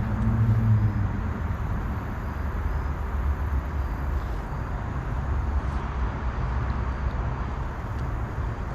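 Steady rushing of river water around a kayak, with a low rumble underneath.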